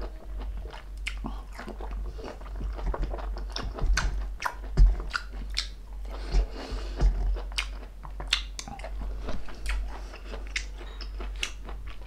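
A person chewing and biting into pieces of orange, with many short mouth clicks. A few low thumps, the loudest about five seconds in.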